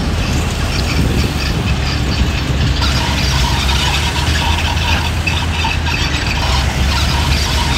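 Heavy diesel earthmoving machinery running steadily: a low engine drone with metallic squeaking and clatter above it.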